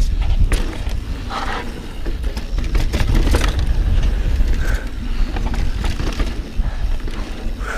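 Santa Cruz Bronson mountain bike descending a dirt trail at speed: tyres rolling over the ground with frequent knocks and rattles from the bike, and wind rumbling on the microphone.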